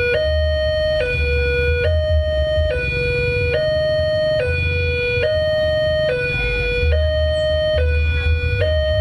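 Railway level-crossing warning alarm sounding from the horn loudspeaker on the crossing pole: two steady tones alternating high-low, each held a little under a second, while the barriers are down for an approaching train. A low rumble runs underneath.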